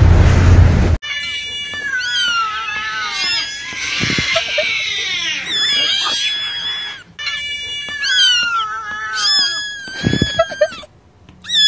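Jet airliner noise that cuts off about a second in, then several cats meowing and yowling over one another in a noisy, chaotic jumble, with two short breaks.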